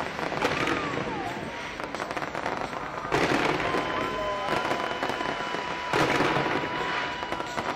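Fireworks exploding and crackling, with two sudden loud bursts about three seconds in and about six seconds in. Crowd voices are mixed in.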